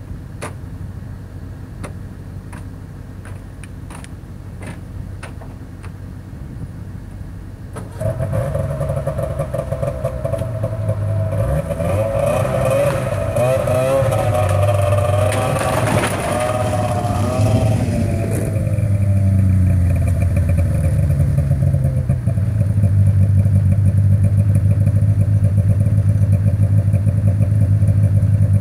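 Snowmobile engine starting about eight seconds in, running with a wavering, rising and falling pitch for several seconds, then settling into steady running. Before it starts there are only a few faint clicks.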